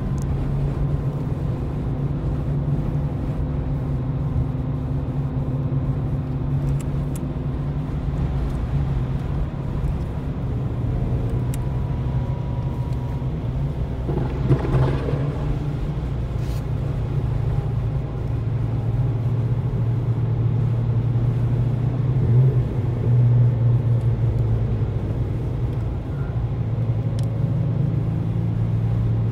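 Engine drone heard inside the cabin of a Lexus IS200 with a TTE Kompressor supercharger kit, its two-litre straight-six running steadily, a little louder in the second half.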